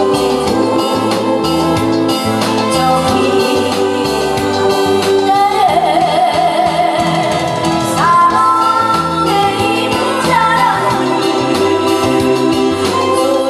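A woman singing into a microphone over amplified backing music with a steady beat and bass line, her held notes wavering with vibrato.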